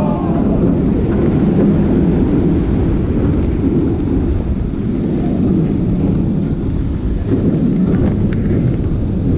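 Roller coaster train running along its track at speed, with a steady deep rumble and wind buffeting the on-ride microphone.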